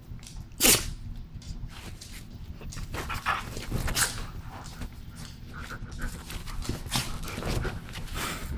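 A Siberian husky and a small bully-breed dog play fighting, with growls, grunts and short yaps; the loudest is a sharp bark a little under a second in.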